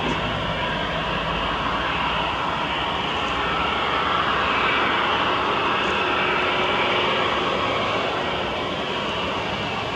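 Airbus A320-214's CFM56 turbofan engines running at low taxi thrust, a steady jet whine and rush that swells a little midway.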